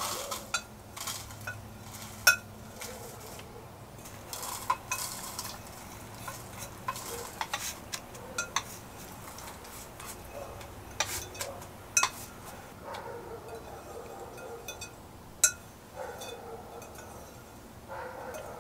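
A metal spoon scraping and tapping against a glass bowl as chocolate cookie crumbs are shaken out into small metal springform pans, with scattered sharp clinks, two of them much louder than the rest.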